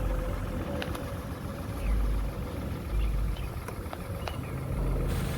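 Lexus GS350's 3.5-litre V6 idling steadily and smoothly, with no misfire to be heard. A few faint short high chirps come and go over it.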